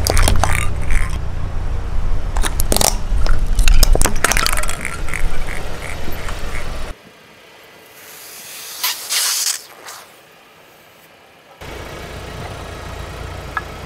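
A car's tyre rolling slowly over plastic LED light bulbs, their shells cracking and popping one after another over a low engine and tyre rumble. About seven seconds in it drops to a quiet stretch with a brief hiss, and the car's rumble comes back near the end.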